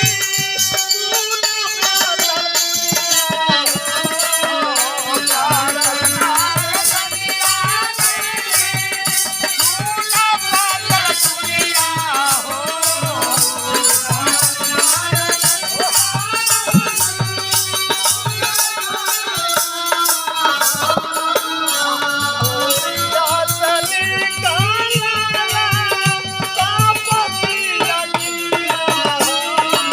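Bhojpuri birha folk music: a bending melody over regular hand-drum strokes and a fast, steady jingling rattle. The rattle is strongest through the middle of the passage and eases toward the end.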